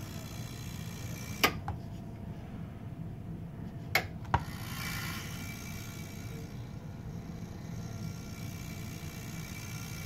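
Pinball machine with a Rottendog Amusements MPU board giving a steady low hum, the noise of a power supply that is not delivering a proper 5 V. Three sharp clicks cut through it: one about a second and a half in, and two close together about four seconds in.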